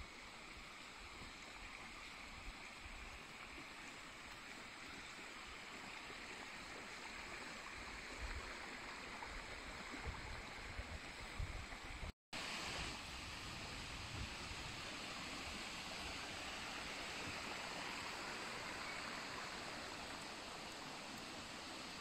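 Shallow forest stream babbling steadily over stones and small riffles, with a few low thumps on the microphone around the middle and a brief dropout about halfway.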